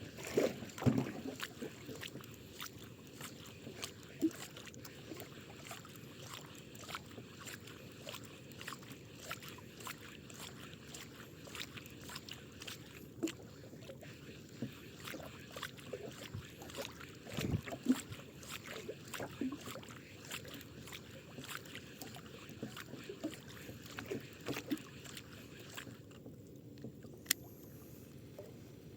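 Small boat drifting at sea: water lapping against the hull under a steady low wash, with many scattered small knocks and clicks and a couple of louder thumps.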